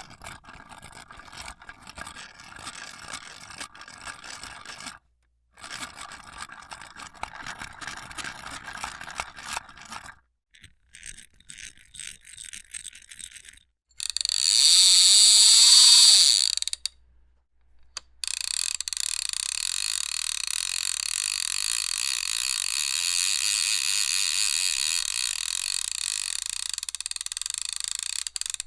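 A run of separate mechanical sound effects: fast, irregular clicking and ratcheting in two stretches, then sparser ticks. Next comes a short, loud whir that glides in pitch, and after a brief pause a long, steady mechanical whir.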